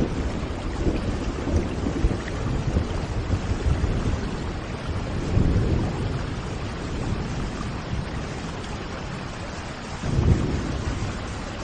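Steady rushing water with no pause, swelling into deeper surges about five seconds in and again near the end.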